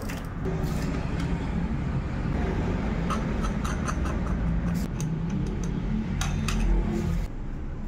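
A steady low rumble like a running engine, which stops suddenly near the end, with scattered sharp metallic clicks as the bicycle's screw-on freewheel and hub are turned by hand in the second half.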